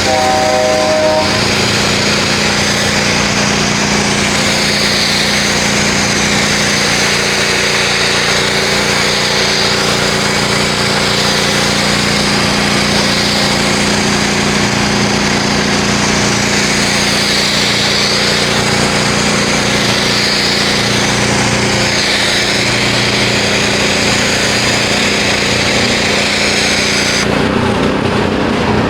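A 3200 psi pressure washer running steadily, spraying hissing soap foam through a foam cannon; the spray cuts off about a second and a half before the end while the motor keeps running.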